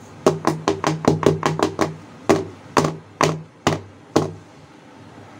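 A heart-shaped metal cake pan full of batter being knocked down repeatedly on a wooden table: quick knocks about five a second, then slower, spaced ones, stopping about four seconds in. The tapping settles the batter and drives out air bubbles before baking.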